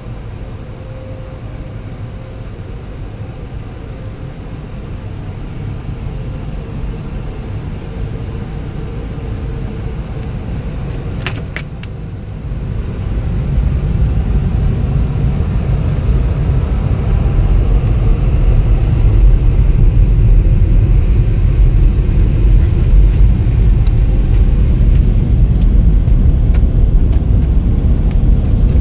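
Automatic car wash heard from inside the car: a steady rumble and rush of machinery. About halfway through it grows much louder, with a heavy low rumble, as the car wash's air dryer blowers work on the car.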